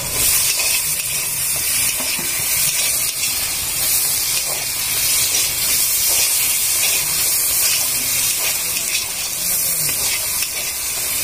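Onions, spices and freshly added tomatoes sizzling steadily in hot oil in a large wok as they are stirred.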